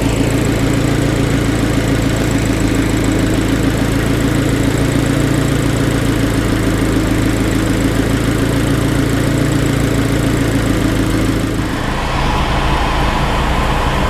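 Abarth 500's 1.4-litre turbocharged four-cylinder idling steadily with the air-conditioning compressor running while the system is charged through the low-pressure port. About twelve seconds in the sound changes to a steady hum with a thin whine: the air conditioning heard from inside the cabin.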